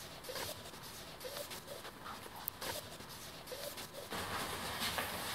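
Felt-tip marker strokes rubbing and squeaking on a large sheet of paper, a quick run of short scratchy strokes as letters and digits are coloured in; a little louder after about four seconds.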